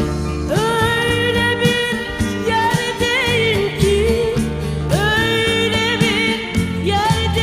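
Background music: a song with a wavering, ornamented sung melody over a steady bass and beat.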